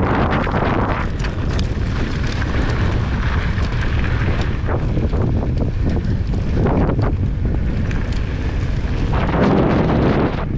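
Wind rushing over a GoPro's microphone on a mountain bike ride, a loud steady low rumble with many short knocks and rattles from the bike running over the trail.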